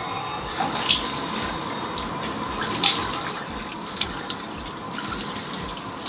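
Bathroom sink tap running steadily, with a few splashes as water is scooped onto the hair by hand.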